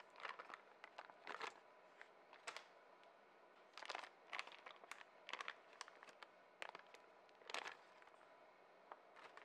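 Faint, scattered rustles and soft taps, about a dozen spread irregularly, as slabs of softened butter are placed into a stainless steel stand-mixer bowl.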